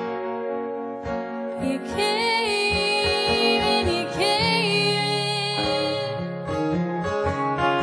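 Live country song: a woman singing two long, wavering phrases, about two seconds in and again about four seconds in, over strummed acoustic guitar and electric guitar.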